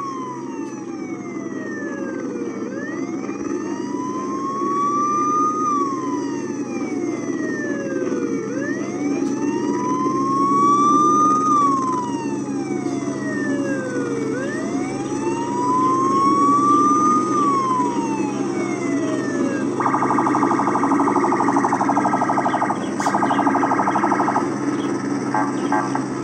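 Police siren wailing, its pitch rising slowly and falling back three times, each cycle about six seconds long, then switching about twenty seconds in to a rapid pulsing warble. A steady low rumble runs beneath it.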